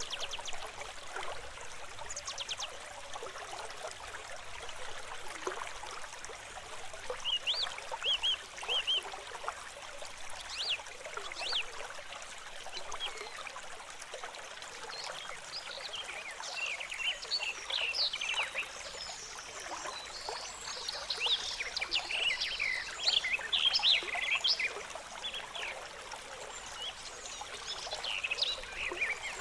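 A stream trickling and babbling steadily, with birds chirping over it; the chirping grows busy about halfway through and again near the end.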